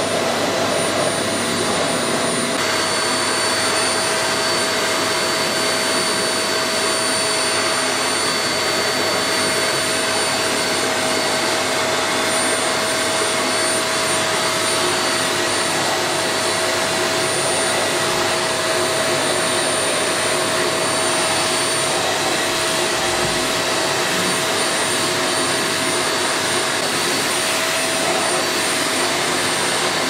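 Vacuum cleaner running steadily with a high whine as its hose nozzle is drawn over a cat's fur; the whine shifts slightly in pitch about two and a half seconds in.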